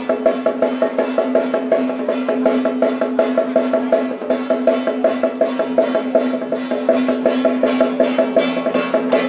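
Procession percussion playing rapid, even strokes, about seven a second, over a steady held tone.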